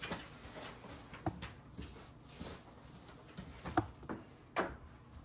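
Household items being moved about by hand: a handful of scattered, separate thumps and knocks.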